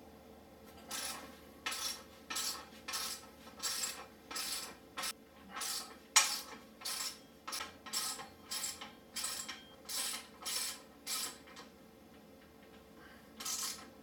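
Ratchet clicking in quick back-and-forth strokes, about two a second, as a T45 Torx bit turns out a rear sprocket bolt, with one sharper clack midway; the clicking pauses near the end, then starts again on the next bolt.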